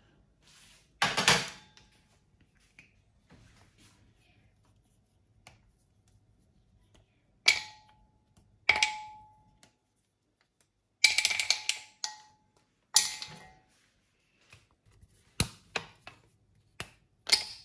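Squares of chocolate being snapped off and dropped into a bowl: a handful of sharp clacks at irregular intervals, some leaving the bowl ringing briefly.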